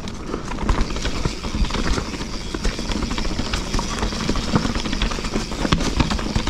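Canyon Spectral CF mountain bike being ridden over a rough trail: a steady rushing noise with frequent short knocks and rattles.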